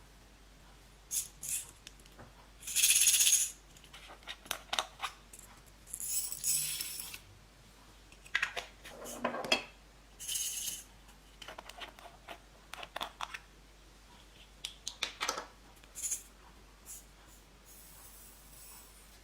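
Slime and small plastic makeup items being handled: a scattered series of sharp clicks, pops and short crackling bursts, the loudest lasting under a second about three seconds in.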